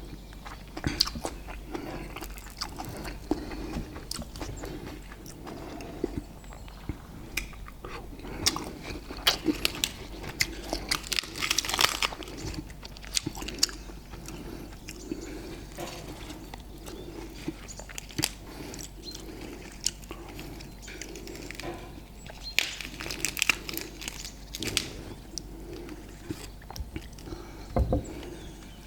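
Close-up chewing and biting of a meal of grilled marinated beef (crying tiger steak) with sticky rice, with many sharp mouth clicks scattered throughout.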